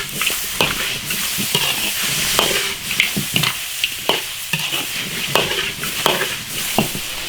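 Soft-shell turtle pieces sizzling as they are stir-fried in an iron wok, with a spatula scraping and clattering against the wok about once or twice a second.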